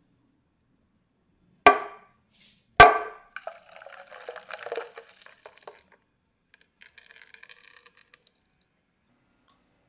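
Two sharp knocks about a second apart, then custard mixture poured from a glass bowl into a stainless steel saucepan of milk and cream: a thick liquid pouring and splashing, tailing off to a faint trickle.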